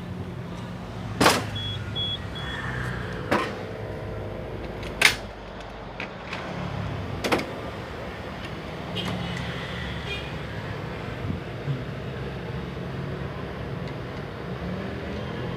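Several sharp clicks and knocks, four of them loud in the first half, over a steady low hum, with three short faint beeps about two seconds in.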